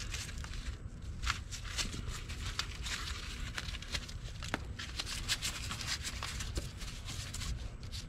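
Dried mud being picked and scraped off an ATV's front brake caliper: an irregular run of scratches and small clicks over a steady low hum.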